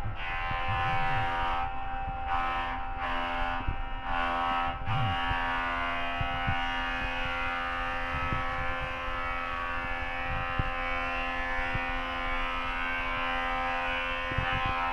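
A motor running at a steady speed, giving a constant-pitched whine over a low rumble.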